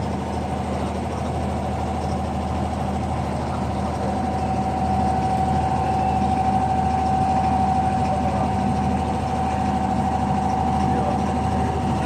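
An abra water taxi's inboard diesel engine running steadily under way: a constant low drone with a steady whine above it, growing a little louder about five seconds in.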